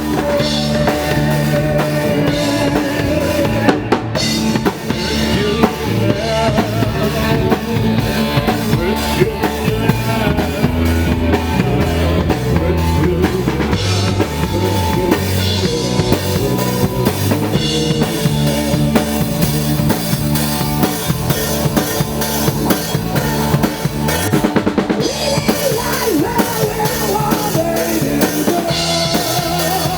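Rock band playing live on stage, an instrumental passage with the drum kit to the fore: bass drum, snare and rimshots driving a steady beat over pitched guitar and bass lines.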